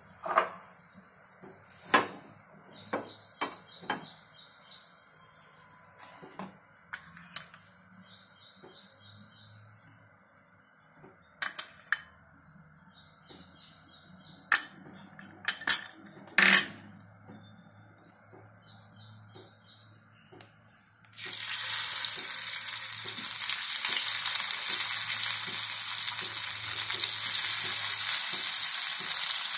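Scattered light clicks and knocks, then about two-thirds of the way in a sudden loud, steady sizzle as cornflour-dusted boiled potato pieces go into hot mustard oil in a frying pan and begin to fry.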